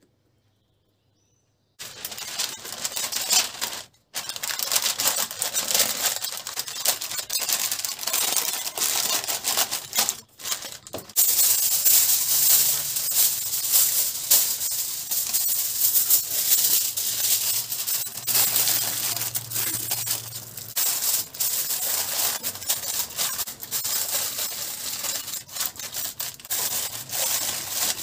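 Aluminium foil crinkling and crackling as it is pulled from the roll, crumpled and pressed around the rim of a round roasting pan, with baking paper rustling near the end. It starts about two seconds in and breaks off briefly near four and ten seconds.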